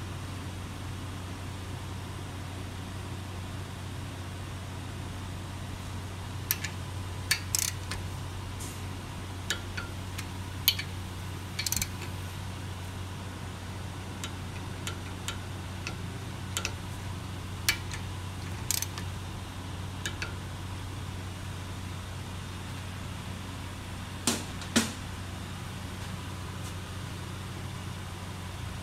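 Scattered sharp metallic clicks from a click-type torque wrench being set and used to tighten the front brake caliper bolts, the loudest two close together near the end, over a steady low hum.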